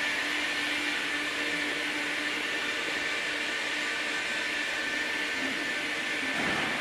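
Steady whirring of a running machine, with a fixed hum and a higher whine over a broad hiss; a low rumble swells near the end.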